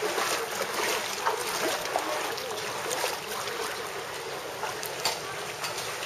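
Shallow floodwater on a paved street splashing and sloshing under wading feet, a steady run of small splashes.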